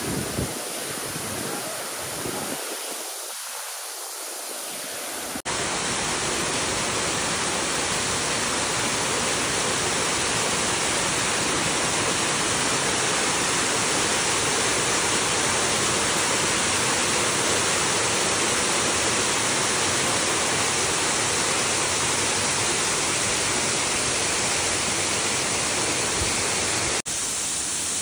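Waterfall's rushing water, a loud, steady, even roar that starts abruptly about five seconds in, after a softer, uneven stretch of rushing noise.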